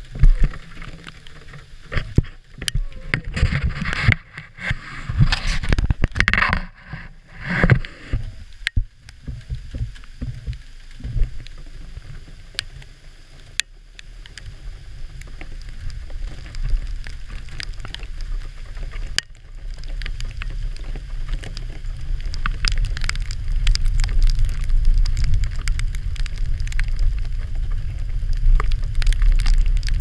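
Vehicle driving slowly along a rough, muddy dirt track, heard from a camera on the hood: a low rumble of engine and tyres that grows louder in the second half, with bursts of wind buffeting on the microphone in the first several seconds and scattered knocks and rattles from bumps.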